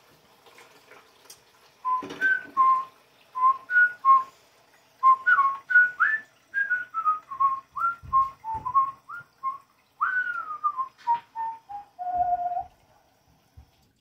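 A person whistling a tune: a string of short single notes with a few slides in pitch, starting about two seconds in and ending on a lower, longer note near the end.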